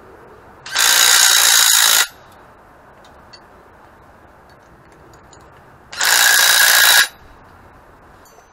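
Cordless drill run twice against a metal part, each time for about a second, with a high-pitched whine and grind that starts and stops abruptly.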